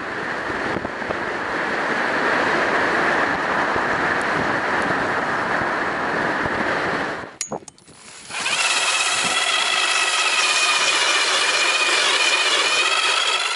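A vehicle driving along a snow-covered road, a steady rushing road and wind noise that cuts off about seven seconds in. Then a Clam 120-volt lithium electric ice auger drilling through the ice, a steady whine with a slightly wavering pitch.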